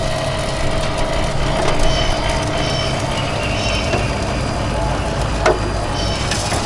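Electric rotisserie motor running steadily as the spit turns, a low hum with a thin steady whine, and a brief tap about five and a half seconds in.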